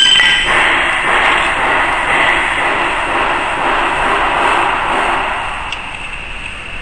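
Steady mechanical rushing noise that swells and eases off after about five seconds, with a brief metallic ring right at the start.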